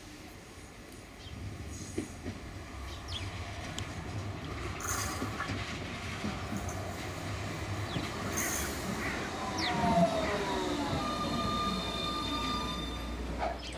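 Bombardier Flexity Swift tram approaching and pulling into the stop, its running noise growing louder. From about nine seconds in, the electric drive's whine falls in pitch as it brakes to a halt, and a steady hum and high whine hold once it has stopped.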